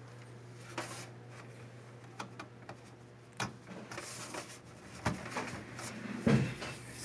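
Scattered clicks and knocks from handling a desktop PC case and its front-panel cables and connectors, with a few heavier knocks about six seconds in. A low steady hum runs underneath.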